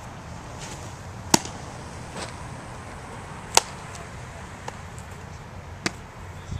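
Baseball smacking into leather gloves during bullpen pitching: two loud, sharp pops about two seconds apart, then a softer one near the end.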